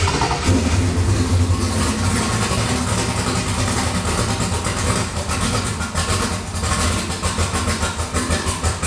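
Twin-turbo LS V8 with a BTR Stage 3 turbo cam idling steadily with a choppy firing pulse, freshly started after its Gen 3 to Gen 4 swap.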